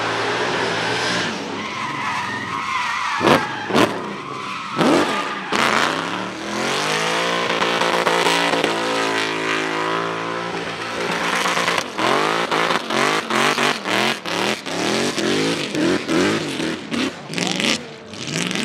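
Lexus RC drift car spinning donuts, its engine revving hard and its rear tyres screeching as it makes thick smoke. Two sharp bangs come about three seconds in. In the second half the throttle is blipped in quick on-off bursts, about two a second.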